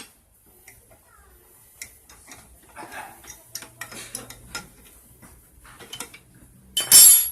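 Metal engine parts and hand tools clinking and tapping irregularly during the teardown of a Yamaha F1ZR two-stroke motorcycle engine, with a short, loud burst of noise lasting about half a second near the end.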